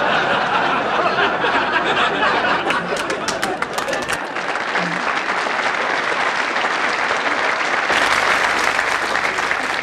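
Large theatre audience applauding loudly and steadily, the clapping swelling again near the end.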